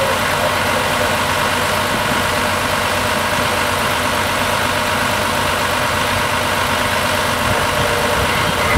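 Pierce fire engine's diesel engine idling steadily.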